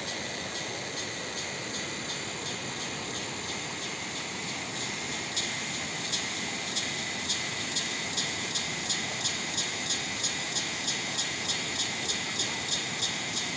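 Steady rush of water. About five seconds in, a sharp, high chirp starts repeating and speeds up from under two a second to about three a second before it stops near the end.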